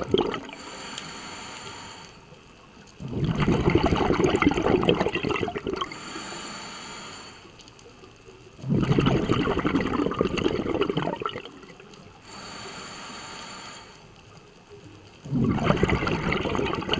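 Scuba diver breathing through a regulator underwater: a quieter hissing inhale through the demand valve, then a long bubbling exhale, repeating slowly about every six seconds.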